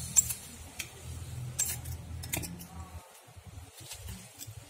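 Pruning shears snipping through pandan wangi leaves: a few sharp clicks, the first the loudest, as damaged leaves are trimmed off.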